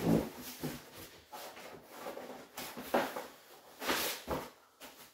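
Cardboard and packing foam rustling and knocking as a small cardboard box is handled inside a shipping carton, in several short, separate bursts, the loudest about three and four seconds in.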